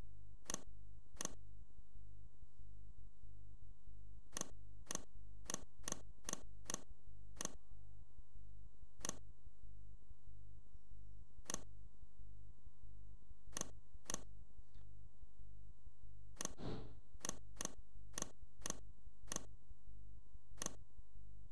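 Computer mouse clicking: about twenty sharp single clicks at irregular intervals, with one longer, duller rustle about three-quarters through. A steady low electrical hum runs underneath.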